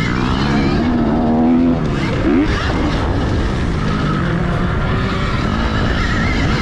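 Motocross race from on track: gas dirt bike engines rise and fall in pitch as the bikes accelerate and back off, over a steady rush of noise.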